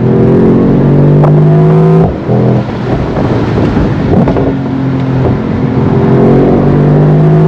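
2023 Mercedes-AMG SL55's 4.0-litre twin-turbo V8 under full throttle, heard from the open cockpit: the engine note climbs, drops at quick paddle-shifted upshifts about two and four seconds in, then climbs again. Pops and bangs come from the exhaust.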